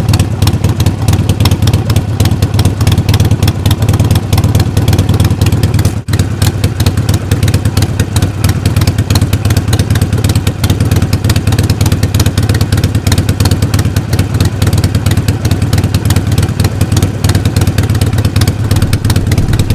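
Harley-Davidson Iron 883's air-cooled V-twin idling steadily through aftermarket silencers, with a short break about six seconds in.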